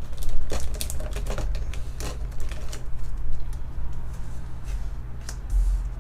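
Irregular sharp clicks and light taps, densest in the first two seconds and then sparser, over a steady low hum.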